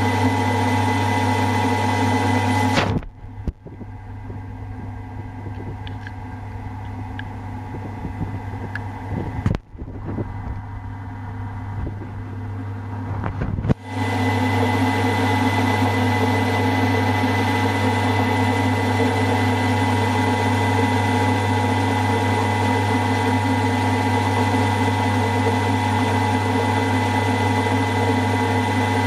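Milling machine running with a steady hum as a 1/8-inch end mill cuts through a casting. About three seconds in the sound drops to a quieter background with a few faint clicks, and the machine's steady running sound comes back abruptly about fourteen seconds in.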